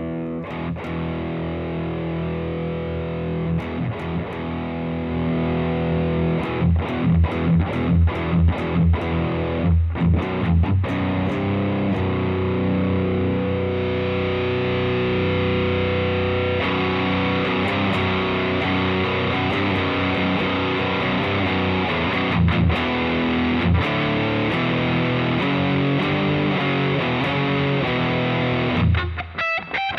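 Electric guitar played through a Brown Sound overdrive pedal emulating a Marshall amp, into a Fender Deluxe amp: thick, distorted riffs and chords, with a run of chopped chord strokes about seven seconds in. Near the end the distortion drops away and the notes ring out more cleanly.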